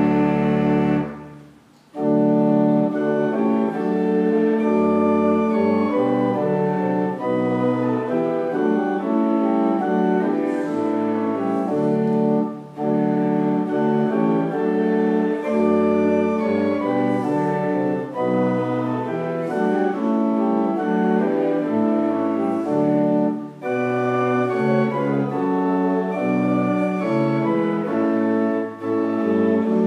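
Church organ playing a hymn in held chords. It pauses almost to silence about a second in, then carries on, with brief breaks between phrases.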